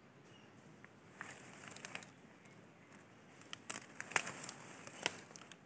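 Hand sickle slicing through grass and weed stems: a handful of irregular sharp cutting snaps with rustling of leaves, the loudest ones in the second half.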